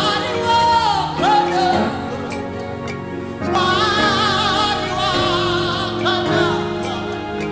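Worship music: a solo voice sings long, wavering notes over sustained chords, with a short dip in loudness around the middle.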